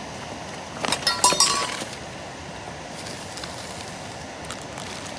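Hard objects clinking together in a quick cluster of ringing clinks about a second in, like cookware or utensils knocked while rummaging. Under it, the steady hiss of a camp stove burner on high flame heating water.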